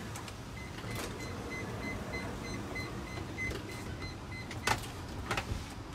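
Steady low hum inside a minivan's cabin, with a faint high beep repeating several times a second and a few sharp clicks, the loudest near the end.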